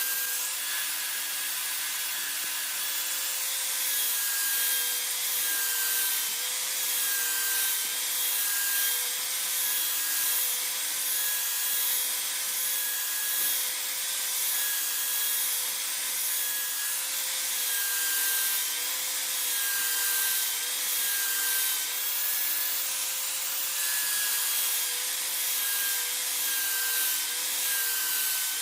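Power sanding or grinding tool running steadily with a slightly wavering whine, rubbing against the work in a continuous rasping hiss with faint regular strokes, in the shaping of a handmade cleaver.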